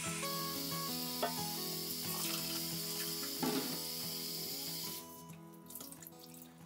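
Kitchen tap running into a stainless steel sink and into a saucepan of cut potatoes, the flow stopping about five seconds in, with quiet background music throughout.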